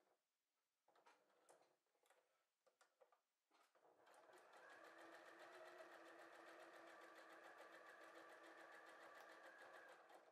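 Faint domestic sewing machine: a few scattered clicks at first, then about four seconds in it starts stitching steadily, with rapid even needle ticks, and stops near the end.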